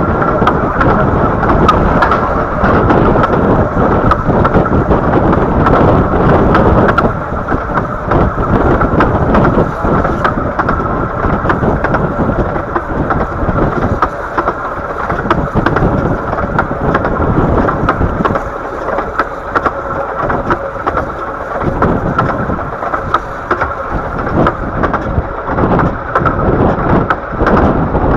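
Ride noise of a 15-inch gauge miniature train from on board: a steady loud rumble of the carriage running along the track, with frequent irregular clicks and knocks from the wheels and rail joints.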